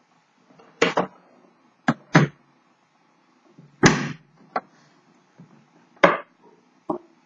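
Seven or so sharp knocks and clacks from handling the typewriter's hard carrying case, its lid and latches shutting. The loudest knocks come about four and six seconds in.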